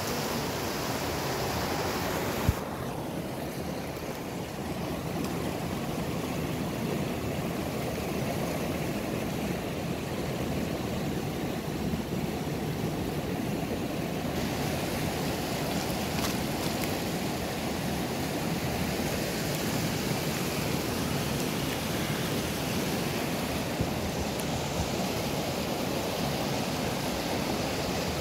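Steady rushing of a small mountain river, with one sharp click about two and a half seconds in, after which the higher hiss of the water is duller for about ten seconds.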